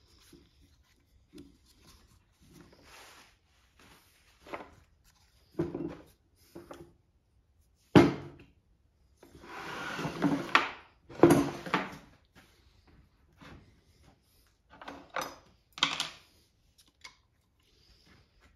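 Rummaging through drawers for tools: scattered clatters and knocks of metal tools, with a drawer sliding about ten seconds in and sharp knocks just before and after it.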